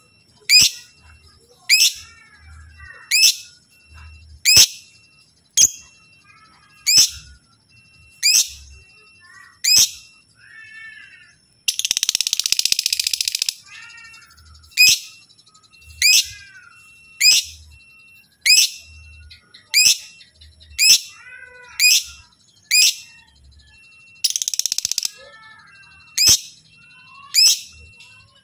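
Lovebird calling: sharp, loud chirps about once every second and a bit, with softer chattering between them. Twice, about 12 s and 24 s in, it breaks into a rapid buzzing trill lasting a second or so.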